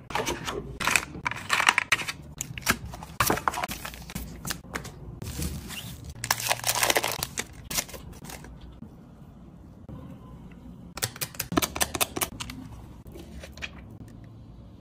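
Crinkling, clicking and tearing of screen-protector packaging: a plastic blister pack being handled and a paper-foil cleaning-wipe sachet torn open. There is a longer tearing sound about halfway through, and another short run of clicks and crinkles later on.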